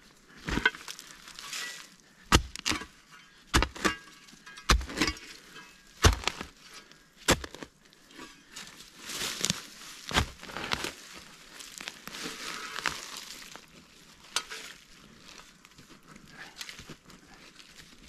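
Shovel digging into forest soil: about ten sharp chops into earth and roots over the first ten seconds, then scraping and rustling of loosened dirt and leaves, thinning to light crackles.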